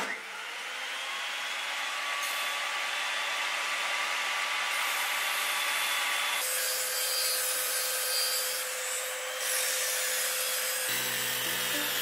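Table saw ripping a wooden board, the blade cutting under load with a steady whine. The pitch of the whine shifts about two-thirds of the way through, and music comes in near the end.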